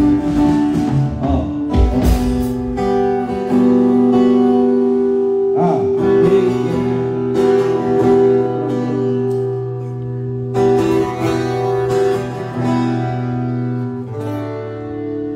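Acoustic guitar amplified through the stage sound system at a soundcheck, slow chords strummed every second or two and left to ring.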